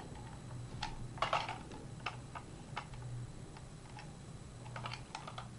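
Scattered light plastic clicks and taps from a modified Nerf blaster being handled, some of them in quick little clusters.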